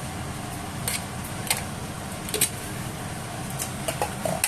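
Kitchen cooking sounds while a pot of coconut-milk gravy is seasoned on the stove: a steady low rushing background with a few short, sharp light taps, about a second in, at one and a half seconds, near two and a half seconds, and a cluster near the end.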